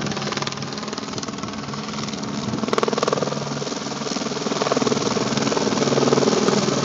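Firefighting helicopter carrying a slung water bucket flying in toward the listener, its rotor beating steadily and growing louder over the last few seconds.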